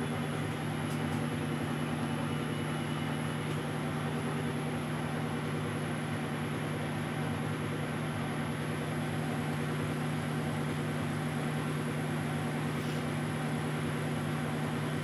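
1972 Weiler Matador SV lathe running at 600 rpm with a steady gear hum, taking a light finishing cut on an oiled workpiece with a DCGT insert under power feed.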